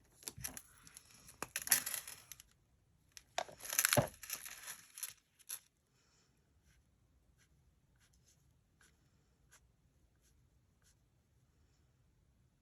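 Paper and craft supplies being handled: two stretches of rustling, with a sharp click about four seconds in, then only faint light ticks.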